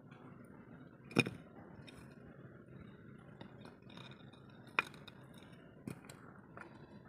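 Steady outdoor background hiss with two sharp wooden knocks, one about a second in and a louder-ringing one nearly five seconds in, and a softer knock just before six seconds: small wooden blocks being handled and knocked against each other as they are laid together.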